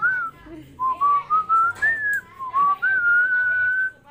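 A person whistling a tune: short notes stepping upward, then one long held note near the end.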